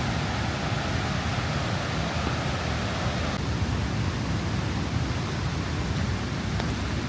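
Steady rush of flowing water, an even roar of falling and running water from the creek and falls, a little brighter in the first half.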